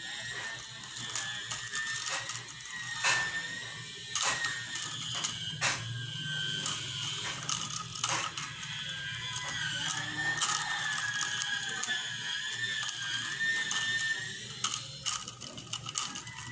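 Strips cut from a green plastic soft-drink bottle crackling and clicking as fingers bend and fold them, in irregular sharp clicks. A faint wavering high tone runs underneath.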